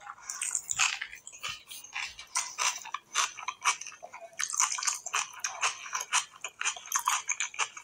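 Close-miked eating sounds: fingers squishing and mixing rice with mutton curry on a plate, giving many quick wet, sticky clicks and squelches.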